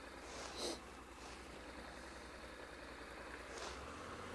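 Honda NC700X parallel-twin engine idling quietly while the bike is stopped, picked up by a helmet chin-mounted camera, with two brief rustles about half a second and three and a half seconds in.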